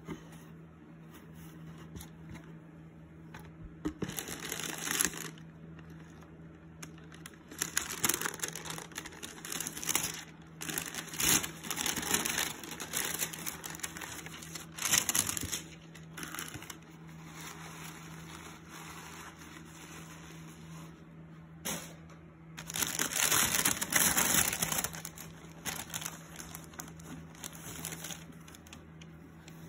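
Tissue paper and shoe wrapping rustling and crinkling in irregular bursts as a shoe box is unpacked by hand, the longest burst about three-quarters of the way through, over a faint steady hum.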